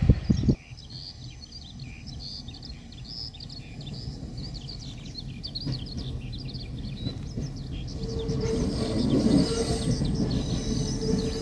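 Small birds chirping and twittering over a low background rumble. A loud low rumble cuts off suddenly about half a second in, and near the end a steady hum comes up and the overall sound grows louder.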